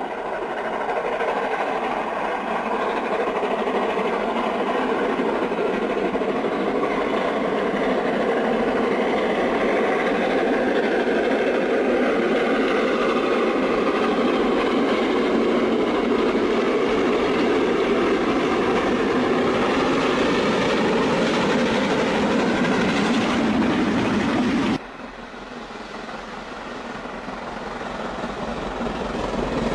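Steam locomotive hauling a train: a steady, loud rush of exhaust and running noise. About 25 seconds in it drops away suddenly, then builds steadily again as a steam train approaches.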